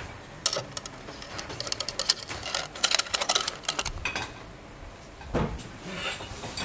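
A fork clicking and scraping in quick irregular ticks against the plates of an electric waffle iron as a heart-shaped waffle is prised loose, then a dull thump about five seconds in.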